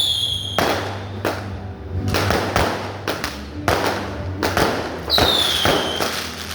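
Fireworks going off in a run of sharp bangs about every half second. A high whistle falling in pitch sounds twice, at the start and about five seconds in, like whistling fireworks.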